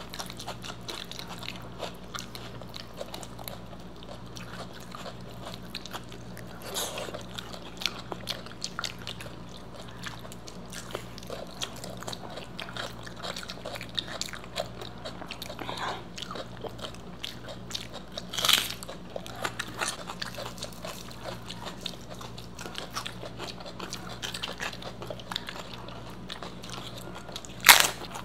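Close-miked eating of Indian food with the hands: steady chewing and mouth sounds, with two sharp, loud crunches of crisp fried snacks, one about two-thirds through and one near the end, over a steady low hum.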